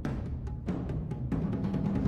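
Background music with low drums and a quick, steady beat.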